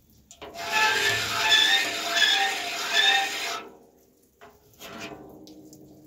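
Andrus saw filer's file rasping across a tooth of a circular sawmill blade as it is cranked: about three seconds of loud scraping with a shrill squeal on each stroke. A fainter sound with a steady ring follows near the end.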